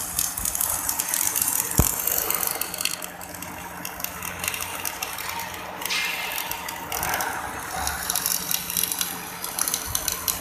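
Electric arc welding on a baseplate: the arc crackles and sizzles continuously under a low steady hum.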